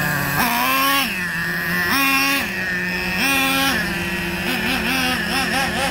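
Small two-stroke nitro engine of a 3.3 cc RC monster truck revving in throttle bursts as the truck drives. There are three longer rises in pitch, each held briefly and then dropped back, then quicker wavering blips near the end, over a steady lower idle tone. The engine is partway through break-in, its needle leaned most of the way (stage 4.5 of 5).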